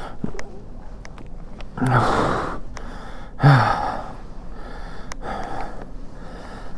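A man breathing hard, with a string of heavy, gasping breaths, the two loudest about two seconds and three and a half seconds in. A few light clicks sound between the breaths.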